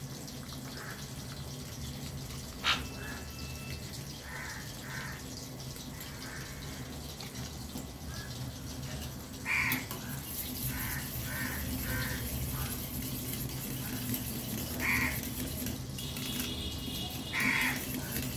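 Crows cawing repeatedly in short calls over a steady low hum. A single sharp clink comes about three seconds in, from a fork stirring sauce in a steel bowl.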